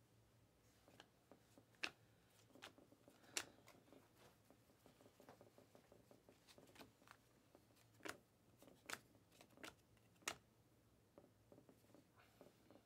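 Faint handling of a stack of glossy Panini Mosaic trading cards, slid and flipped through the fingers, giving light rustles and scattered clicks with a few sharper ticks.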